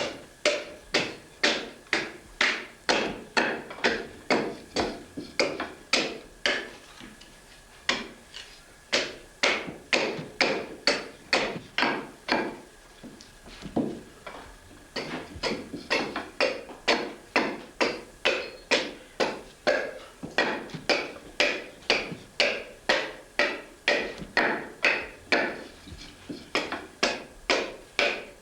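Steady, rhythmic chopping of a one-handed hatchet into fresh chestnut wood, about two blows a second, carving across the grain to shape a pack saddle's centre piece. The blows pause briefly about 7 seconds in and again around 13 seconds in.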